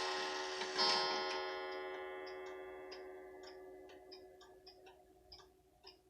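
Heritage 31-day wall clock striking on its coil gong: one last strike about a second in, whose many-toned ringing slowly dies away. The pendulum movement's steady tick-tock comes through as the ringing fades.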